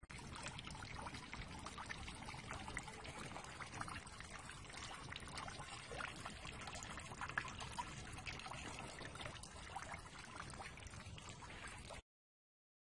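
Water steadily trickling and splashing into a pond, faint, cutting off abruptly near the end.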